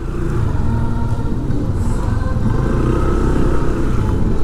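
A motor vehicle engine runs with a steady low rumble.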